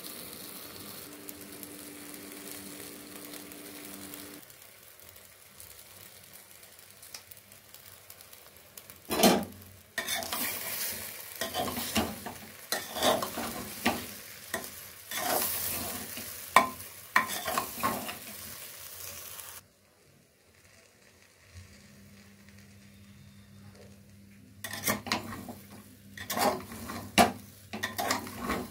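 A metal spoon stirring rice, moong dal and vegetables in an aluminium pot, scraping and clattering against the pot in rapid strokes over a low frying sizzle. The stirring starts about a third of the way in, pauses briefly, and starts again near the end.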